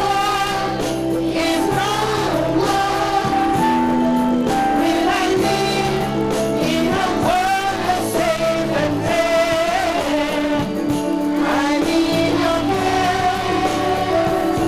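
A song sung by a children's choir with a woman lead singer on a microphone, over sustained instrumental backing.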